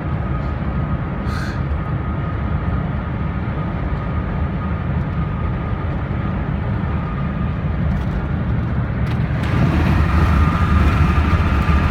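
Steady road noise inside a moving car's cabin: a low rumble of tyres and engine with a faint steady whine. Near the end it grows louder and hissier.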